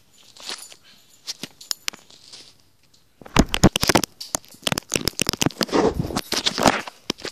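Handling noise of clicks, rubbing and crackling: a few scattered clicks at first, then a dense, louder run of crackling and scraping from about three seconds in.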